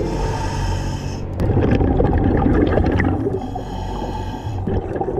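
Scuba diver breathing through a regulator underwater: a low steady rumble of water with two spells of hissing exhaled bubbles, one at the start and one about three and a half seconds in.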